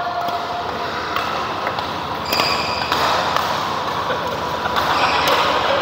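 Badminton rackets hitting a shuttlecock in a doubles rally: a few sharp hits, each a second or so apart, over the steady noise of the hall.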